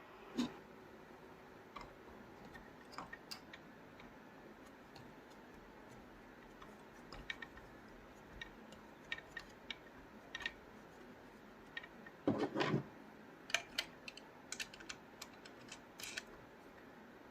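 Scattered light clicks and taps, like small objects being handled, with a short burst of louder knocks about twelve seconds in, over a faint steady hiss.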